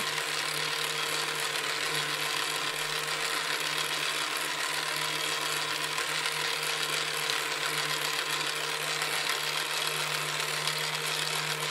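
Electric toy fishing game's small motor and plastic gears whirring steadily with a constant hum as the pond turns.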